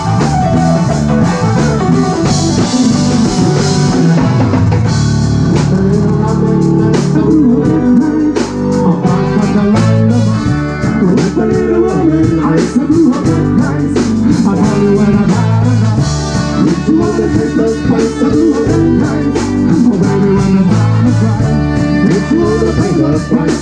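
Live band playing an instrumental passage: electric guitar and drum kit with trumpet and saxophone playing together.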